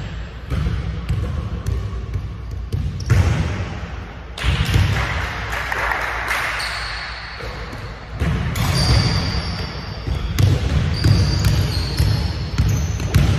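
Basketball bouncing and being dribbled on a hardwood gym floor, repeated thuds. In the second half there are short high squeaks of shoes on the court.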